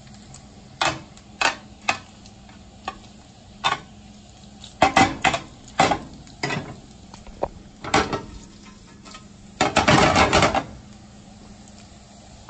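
Kitchen tongs clicking and scraping against an EaZy MealZ square non-stick aluminum grill pan as bacon strips are turned: a string of short clicks, and a longer scrape of about a second near the end. Bacon frying with a faint steady sizzle underneath.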